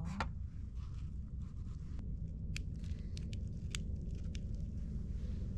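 Light, crisp clicks and crackles from lettuce leaves being folded into a wrap by hand, a handful of them in the second half, over a steady low background rumble.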